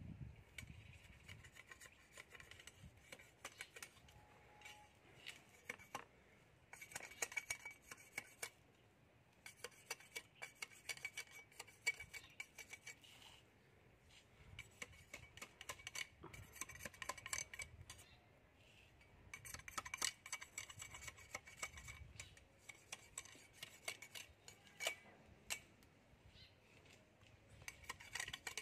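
Quiet, intermittent bursts of scraping and light clicking from handwork on a bamboo fishing rod, coming in clusters of a second or more with short pauses between.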